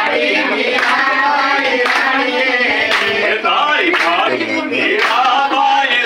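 A mixed group of men's and women's voices singing a song together, with hand-clapping along in time.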